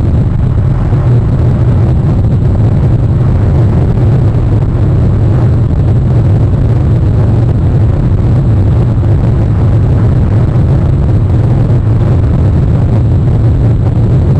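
Steady low rumble of wind on an outdoor microphone, unbroken throughout, with a faint thin high whine above it.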